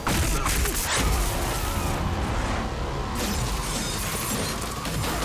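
Action-trailer sound effects: a run of sharp whooshes, crashes and impacts over a steady low rumble, with music faintly underneath; the hits come thickest in the first second and a half.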